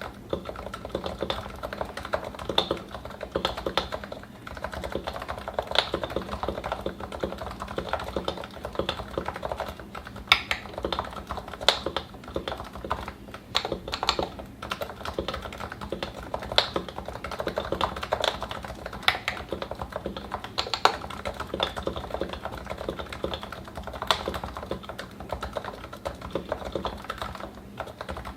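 Continuous typing on a Topre keyboard: a Realforce 87u with 55 g capacitive rubber-dome switches, lubed and fitted with Novatouch sliders, GMK keycaps, in an aftermarket Norbauer case. A steady stream of keystrokes with scattered louder strokes.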